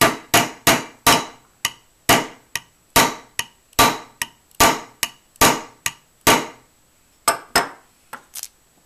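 Rapid sharp taps of an improvised hammer driving a pin into an AR-15 lower receiver, about three strikes a second, each with a short ring. The taps stop shortly before the end.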